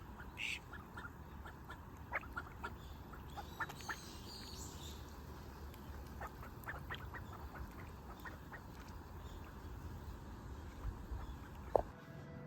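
Scattered short animal calls, a few at a time, over a steady low background rumble.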